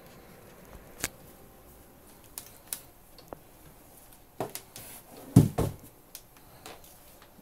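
Cardboard box being handled and shifted on the floor: scattered light clicks and knocks, then two heavy thumps close together about five and a half seconds in.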